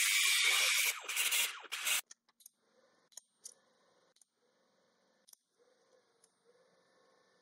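TIG welding arc tack-welding a steel-tube go-kart frame: a loud, even hiss that breaks up and stops about two seconds in, followed by faint ticks and a low hum.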